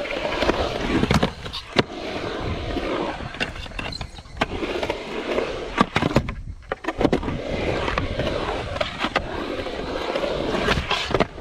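Skateboard wheels rolling on a concrete skatepark, with several sharp clacks and knocks of the board along the way.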